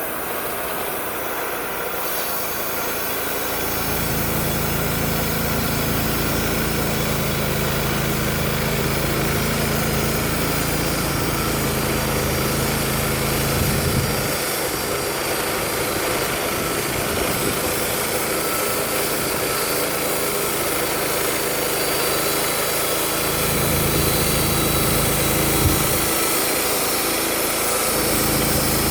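Wood-Mizer LT35 portable band sawmill running steadily, its engine holding an even note, with a low rumble that comes and goes in stretches.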